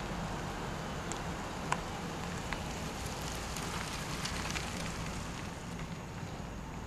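A car driving slowly through a parking lot and pulling into a space: a steady low engine-and-tyre rumble with scattered faint clicks and crackles.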